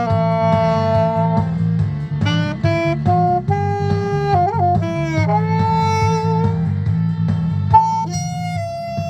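Saxophone playing a slow melody with a dry tone and no added effects, over a steady accompaniment. The pitch wavers in a short bend about four and a half seconds in.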